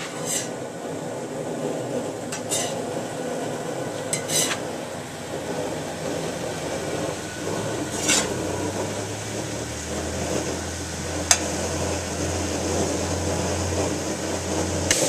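Metal spatula scraping and clinking against a steel wok made from a plow disc as vegetables are stir-fried, about five sharp strokes spread out over a steady hiss of cooking.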